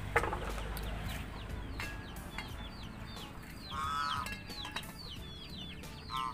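Chickens calling around the yard: a constant run of high, falling chirps, with louder pitched calls about four seconds in and again near the end. Right at the start comes a single sharp metal clink from the lid going onto the aluminium cooking pot.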